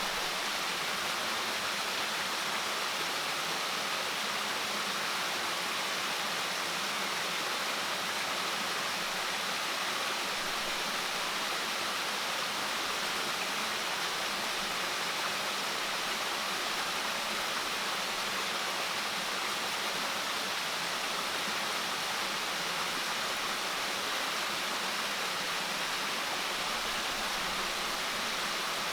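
Steady rushing of water, even and unbroken throughout.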